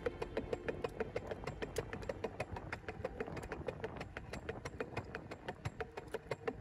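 Dog-pulled cart rolling along a concrete sidewalk behind a running Australian Shepherd, with a rapid, even clicking of about six ticks a second.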